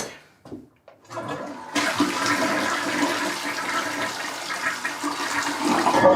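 Toilet flushing: a steady rush of water that builds about a second in and is full from about two seconds in.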